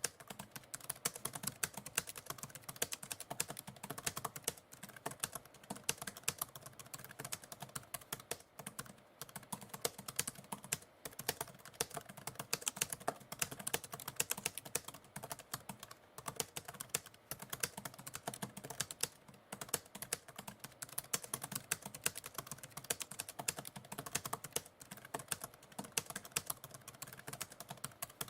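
Typewriter keys clacking in a rapid, irregular stream of typing, with a few brief pauses between runs of keystrokes.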